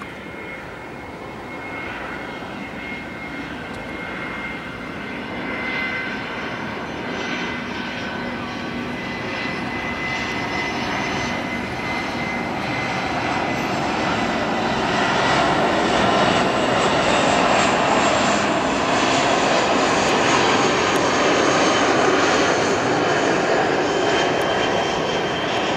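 Boeing 737 jet engines on landing approach, flying low overhead. The noise grows steadily louder for about fifteen seconds and then holds at its loudest, with a high whine that slowly drops in pitch as the plane draws near.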